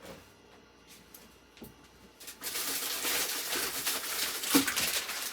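Frozen-food packaging being handled and stacked into a freezer. A quiet couple of seconds with faint clicks, then loud crinkling and rustling of plastic bags and boxes, with a knock about four and a half seconds in as a package is set down.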